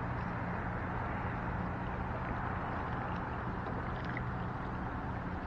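Steady seaside background: a low, even motor hum under a soft wash of water and wind noise.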